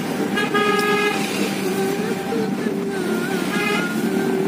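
Car horn tooting twice, a longer toot near the start and a short one near the end, over the steady engine and road noise inside a moving car's cabin.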